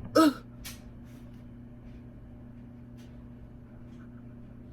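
A short voice sound about a quarter second in and a click just after, then a steady low hum.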